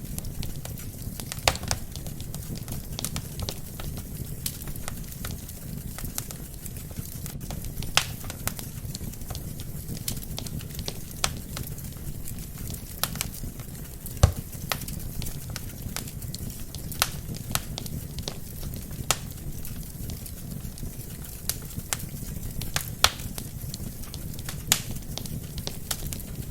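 Wood fire burning in a fireplace: a steady low rumble of flames with irregular sharp crackles and pops from the logs, the loudest pop about halfway through.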